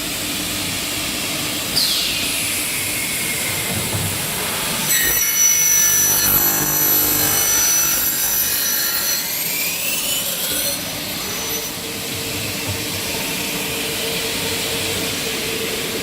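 Double-head aluminium cutting saw running, its 3 kW motor spinning the saw blade; from about five seconds in the blade cuts through a 2 mm aluminium window profile for about six seconds with a loud high-pitched whining screech, after which the saw runs on with a steady hum.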